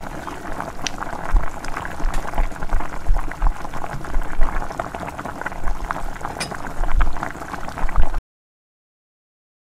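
Thick kadhi (yogurt and gram-flour curry) with pakoras bubbling in a steel pot, a dense crackle of popping bubbles. It cuts off abruptly about eight seconds in.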